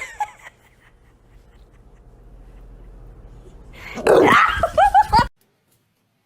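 A dog barking and yelping: a loud burst about four seconds in, then a few short high yelps, cut off suddenly.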